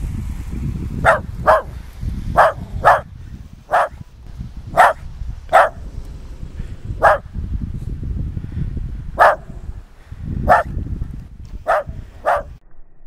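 West Highland White Terrier barking: about a dozen short, sharp single barks at uneven gaps of half a second to two seconds, over a steady low rumble.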